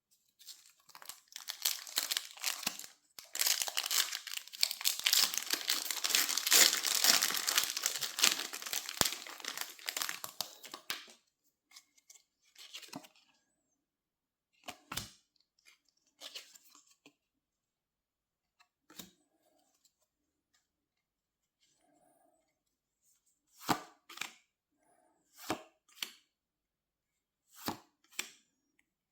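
Pokémon TCG foil booster pack being torn open, the wrapper crinkling and ripping for about the first ten seconds. Then a series of short, separate card sounds, some in quick pairs, as the cards are handled one at a time.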